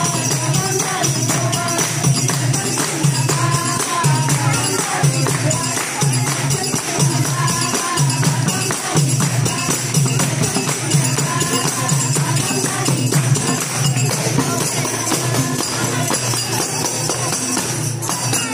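Live Nepali bhajan music: voices singing over a steady, repeating drum beat, with jingling metal percussion and hand clapping.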